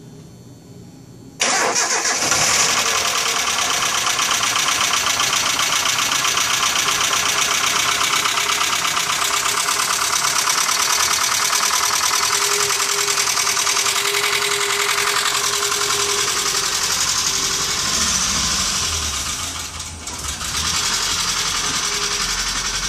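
Nissan truck engine running with a steady, rapid rattling clatter, the sound of a worn timing chain that needs replacing. It comes in abruptly about a second and a half in after a short quiet, and dips briefly near the end.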